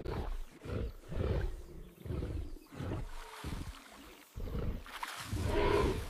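Dinosaur sound effect: a string of low animal grunts and roars in short bursts about every half second, with a longer, fuller call swelling near the end.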